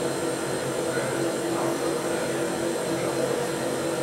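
Cremation furnace running: a steady rush of its burner and blower with a low, even hum underneath.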